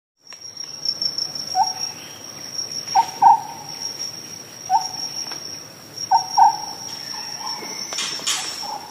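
Nature ambience: insects trilling in one steady high tone, with short lower calls, some in pairs, every second or two, and a brief rustling burst about eight seconds in.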